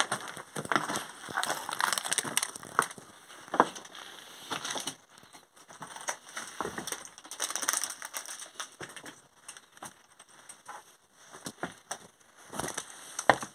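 Footsteps crunching over broken brick and concrete rubble: irregular crunches and scrapes, with a sharper crack about three and a half seconds in and another near the end.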